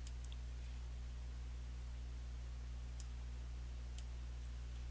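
Three computer mouse clicks, a second or more apart, over a steady low electrical hum.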